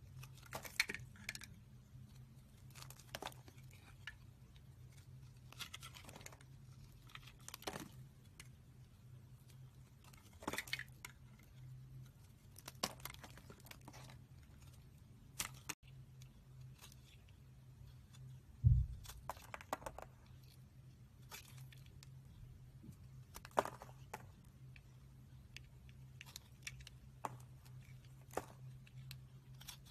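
A knife shaving curls and slices off bars of dry soap: short crisp scraping cuts every second or two, over a low steady hum. There is one low thump about two-thirds of the way through.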